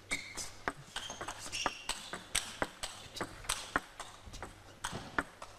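Table tennis rally: a ping-pong ball clicking sharply and irregularly off the table and the two players' bats as the point is played out.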